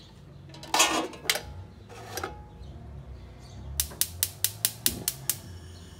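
A muslin-wrapped mug being set down onto a perforated steel steamer stand inside a stainless-steel pressure cooker. A scraping clatter comes about a second in, then a couple of knocks, then a quick run of about nine sharp clicks past the halfway point.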